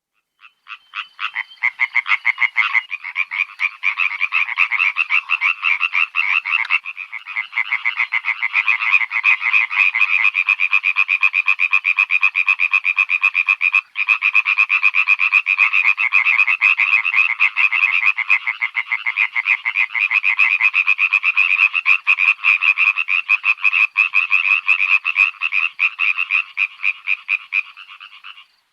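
Frogs calling in a dense chorus of rapid, pulsing croaks, with a brief break about halfway through.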